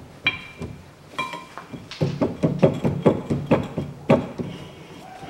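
Front brake disc on a VAZ-2110 hub being worked loose by hand. Two short metallic rings from the disc come first, then a quick run of knocks and clunks, about three to four a second, from about two seconds in to about four. The disc is stuck because its end face is peened over at the hub.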